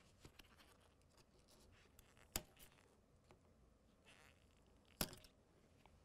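Two sharp snaps, about two and a half seconds apart, against near silence: side cutters cutting through the fiber cable's two glass-reinforced plastic (GRP) strength rods.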